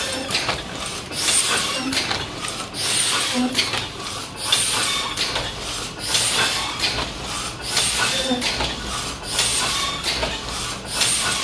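1972 Heidelberg Original windmill platen press running while hot foil stamping: a rhythmic mechanical clatter of grippers, platen and feeder. It repeats about once every second and a half, each cycle a cluster of clicks with a short hiss.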